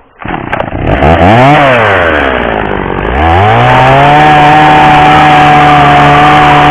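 Stihl two-stroke chainsaw coming up just after the start, revving up and back down once, then held at full throttle with a steady high pitch from about halfway, as it trims the end of a wooden plank.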